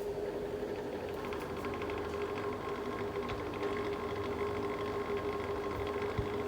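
Mistral Gyro-Aire GA16-70 box fan running, with a steady motor hum. A fainter higher whine and a light, rapid ticking join about a second in.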